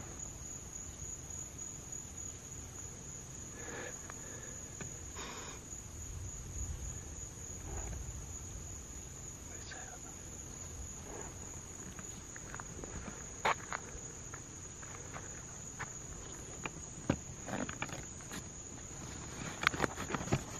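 Steady high-pitched chorus of crickets at night, with a few sharp clicks and knocks in the second half.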